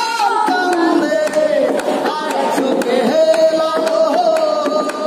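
A woman singing a melody with long held notes, one held for about a second near the middle, and sharp taps sounding throughout.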